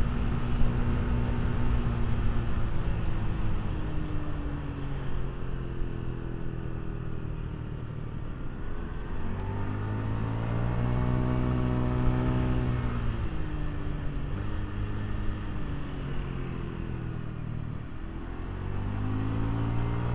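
Honda BeAT scooter's single-cylinder engine under way, its note rising and falling with the throttle. It climbs about ten seconds in, eases off, dips near the end and picks up again, over steady low wind and road rush on the microphone.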